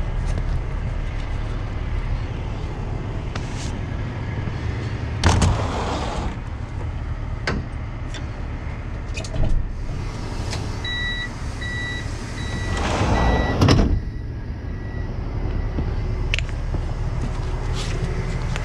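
A truck engine idling steadily, with a few short rushing bursts of noise over it, the last one swelling and then cutting off. In the middle a run of evenly spaced electronic beeps sounds, about two a second.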